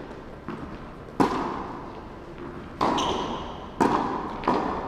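Tennis balls being struck by rackets and bouncing on an indoor hard court during a rally: about five sharp knocks roughly a second apart, each ringing briefly in the large hall.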